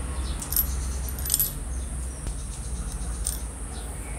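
A few light metal clinks as a steel washer is handled and set onto the centrifugal switch plate of an old drill-press motor, over a steady low background hum.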